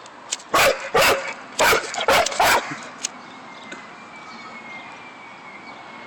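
Dog barking five times in quick succession over about two seconds, loud, with a few short sharp cracks just before and after the barks.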